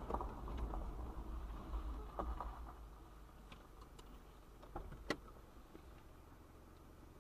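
Road and engine noise heard inside a moving car's cabin, a low rumble that fades after about three seconds. Scattered clicks and knocks are heard throughout, the sharpest about five seconds in.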